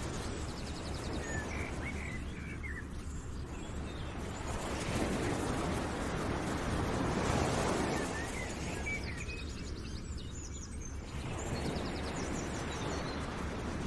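Outdoor nature ambience: small birds chirping in short calls and quick trills over a steady rushing noise that swells and fades.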